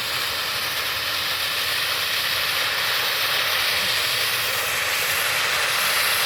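Cone fountain firework (sparkling flower pot) burning, spraying sparks with a steady hiss.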